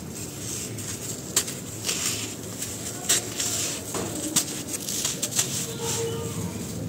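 Dry sand-cement chunks crushed and crumbled by hand: several sharp cracks and gritty crunching, with dry powder sifting and pouring down.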